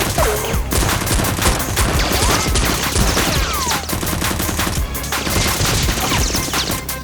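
Rapid, dense gunfire, shots in quick bursts like a firefight, over background music.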